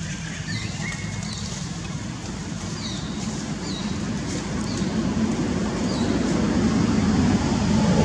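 A steady low rumble that grows louder over the last few seconds, with short high chirps, like a small bird's calls, repeating about once a second.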